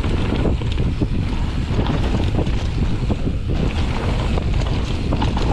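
Wind buffeting the microphone of a mountain bike's rider-mounted camera during a fast descent, over the rumble of tyres on a loose dirt and gravel trail, with rapid small rattles from the bike.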